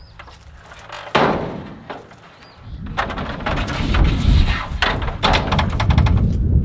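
Knocks and rattles of a fiberglass extension ladder with aluminium rungs being carried and set up against a wooden barn wall, heaviest in the second half, over a low rumble of handling.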